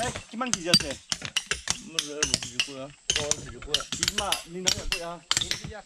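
Rapid, irregular sharp knocks and clicks, several a second, with people talking between them.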